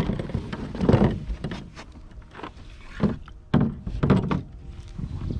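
A series of hollow knocks and thumps from the plastic hull of an Ocean Kayak Prowler 13 as a person shifts weight and gets up to stand in it. The loudest thumps come about a second in and again three to four seconds in.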